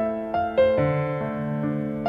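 Background piano music, a gentle melody of notes struck one after another, each fading away.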